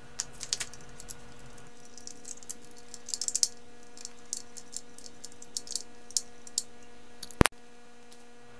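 Scattered small clicks and taps from handling a ski binding and screwing it down onto the ski, over a steady low hum. A single sharp click comes about seven and a half seconds in.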